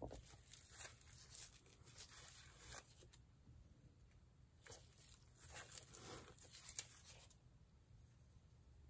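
Faint, intermittent rustling and scratching from a hand in a thin plastic glove working a small tool over wet acrylic paint on a canvas. It dies away about seven seconds in.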